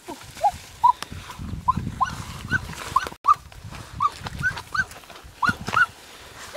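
An animal's short, high yelping calls, about a dozen spaced irregularly, over the rustle of leafy undergrowth being pushed through.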